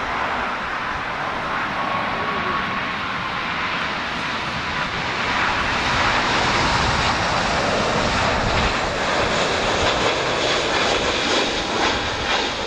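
Boeing 777-200ER jet engines on final approach, a steady roar with a faint high whine, growing louder about five seconds in as the airliner comes closer.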